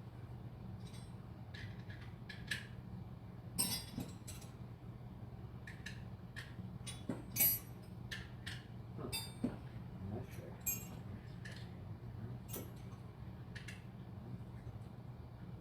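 Scattered light metallic clicks and clinks of hand tools and small hardware being handled during guitar electronics work, over a steady low hum.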